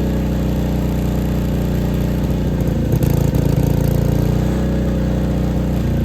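Diesel backup generator engine running steadily on a mix of diesel and filtered waste oil.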